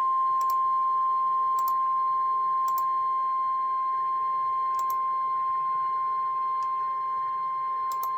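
Emergency Alert System attention signal: one steady, loud tone of about 1 kHz, the single 1050 Hz alert tone used by NOAA Weather Radio. It signals that a severe thunderstorm warning is about to be read. A few faint clicks sound behind it.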